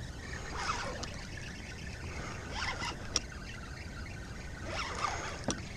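Spinning reel and rod being worked against a hooked fish: three short sweeping sounds about two seconds apart and a couple of sharp clicks, over a low steady rumble.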